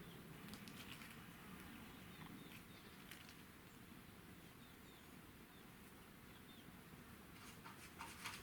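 Faint, sparse bird chirps over quiet background, with a few light clicks near the end.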